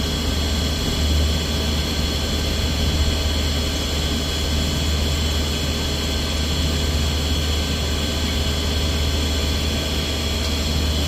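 Heavy machinery running steadily: a loud low hum with several steady high-pitched tones above it, unchanging throughout.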